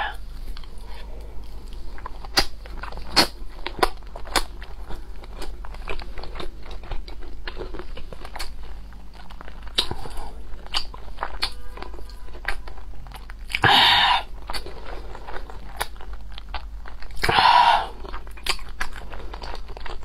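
Close-miked chewing of soft century eggs in chili-vinegar sauce: many short wet smacks and clicks of the mouth, with two longer, louder rushing sounds of about half a second each, around fourteen and seventeen seconds in.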